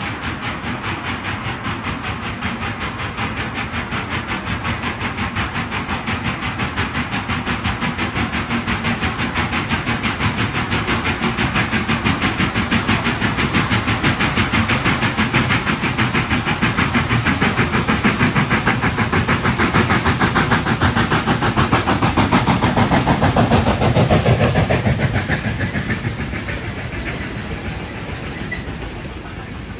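A narrow-gauge steam locomotive approaches working steam, its exhaust chuffing in a steady rapid beat. It grows louder until it passes about three-quarters of the way through, then fades as its coaches roll by.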